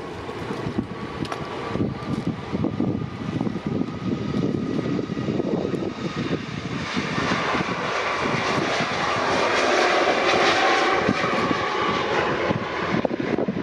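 Jet airliner's engines passing close by: a steady high whine over a rumble at first, then a broad roar that builds and is loudest about ten seconds in before easing off.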